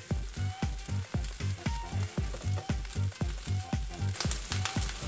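Spiced rice and peas frying in a non-stick pan, sizzling as a plastic spatula stirs and scrapes through it, over background music with a steady beat.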